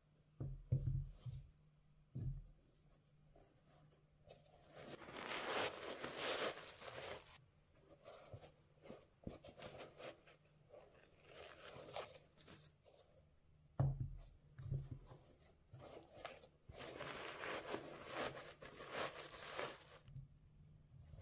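A pair of sneakers handled with cotton-gloved hands: rustling and scuffing of the shoe material in patches, with a few thumps near the start and about two-thirds through as a shoe is set down on the table.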